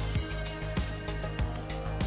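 Background music with a steady beat: a kick drum about every 0.6 seconds under held notes and plucked guitar.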